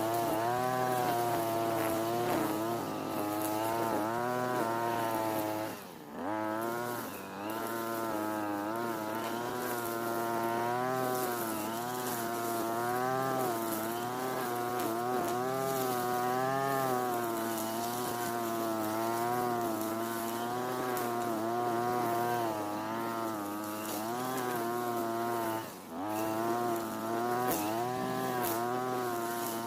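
Europa Hilt TB43 two-stroke brush cutter running at high revs, its engine note wavering up and down. Twice the revs dip sharply for a moment and pick up again: about six seconds in and a few seconds before the end.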